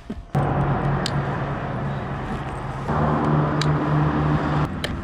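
A motor vehicle engine running steadily. It comes in abruptly just after the start, grows louder for a couple of seconds about three seconds in, then drops back near the end.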